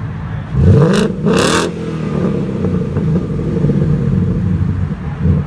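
2015 Mustang GT's 5.0 V8 revving through an aftermarket exhaust. The pitch rises sharply about half a second in, with two loud noisy blasts, then the engine runs on at a steady, raised note.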